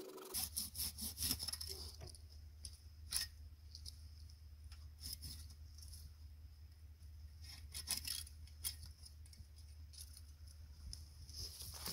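Irregular rustling and cracking of dry pine branches and twigs being handled and pushed through, with a few sharper snaps, over a steady low hum.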